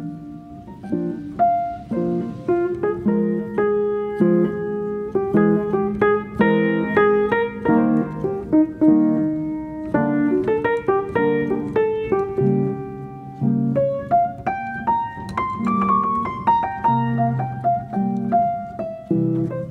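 Background piano music, a continuous flow of struck notes with a melody over a lower accompaniment.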